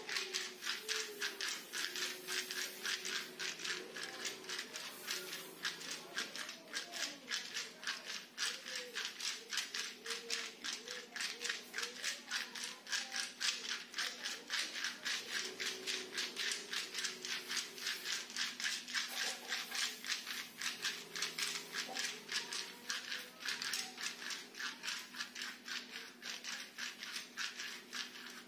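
Hand-held scraper rubbed in rapid, even strokes over oiled skin on a person's back during kerokan scraping massage, several strokes a second.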